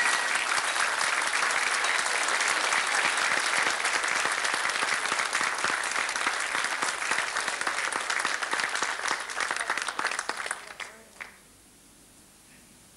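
Audience applauding steadily, the clapping thinning out and dying away at about ten to eleven seconds in.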